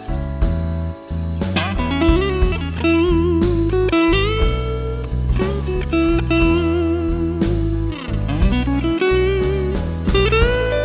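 Electric guitar played through the Nux Amp Academy amp-modeling pedal on its Cali Crunch amp model: a blues lead line with string bends and vibrato on held notes. A blues backing track with bass and drums plays underneath.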